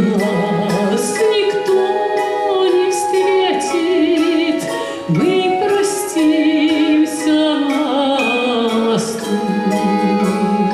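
A Russian romance performed by a female singer with an orchestra: held notes sung with a wide vibrato over a sustained accompaniment.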